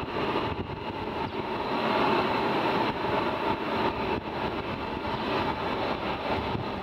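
F-22 Raptor's twin Pratt & Whitney F119 turbofans running at taxi power: a steady jet rush and whine with no change in pitch.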